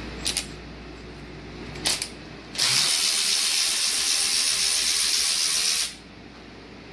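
Two short pairs of metallic clicks, then a steady hiss lasting about three seconds that cuts off suddenly.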